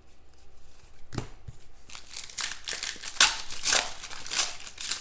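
Trading cards and a foil card-pack wrapper being handled: a string of short crinkling rustles and small clicks.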